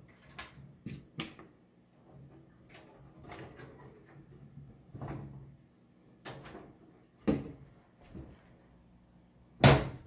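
Handling noise from an NZXT H510i computer case: scattered light clicks and knocks from its side panel being worked, then a single loud thud near the end.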